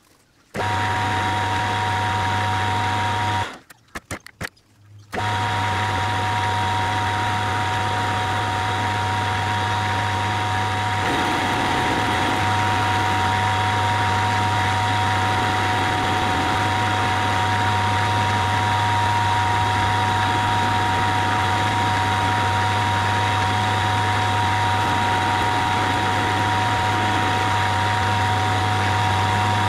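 Hafco AL-336 geared-head metal lathe running: a steady hum with a whine, as the tool turns down the end of a bar of round stock. It stops for about a second and a half near the start, then runs on steadily.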